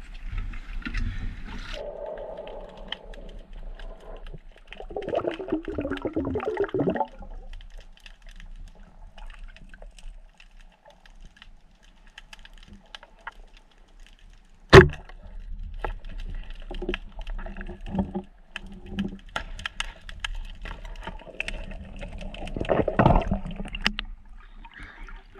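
Underwater gurgling and sloshing around a spearfishing freediver, with scattered knocks. There is one loud, sharp crack about fifteen seconds in. Near the end comes splashing as a fish is lifted out of the water.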